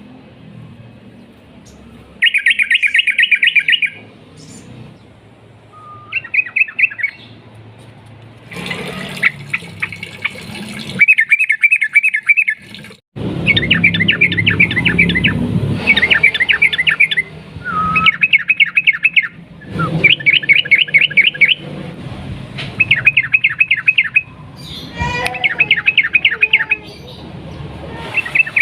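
Yellow-vented bulbul (trucukan) singing its long rolling 'ropel' song: rapid trilled phrases of quick repeated notes, each lasting a second or two, repeated about ten times with short pauses between.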